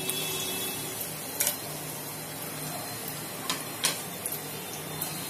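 Sliced onions just tipped into hot oil in a kadai, frying with a steady sizzle. A few sharp clicks against the pan come through the sizzle.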